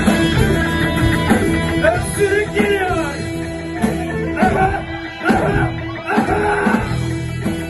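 Rock music led by an electric guitar solo, its notes bending up and down over bass and drums.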